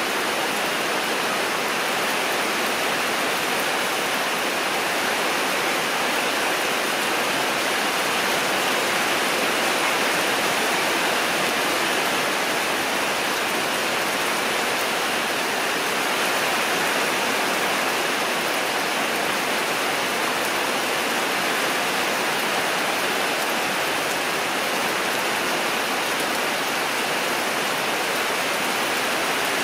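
A steady, even rushing noise with no distinct events, like heavy rain or running water.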